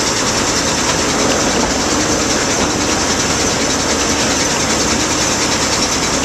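Class 03 diesel shunter's Gardner eight-cylinder engine running steadily, heard close up from the locomotive's outside running board as it rolls slowly along the track.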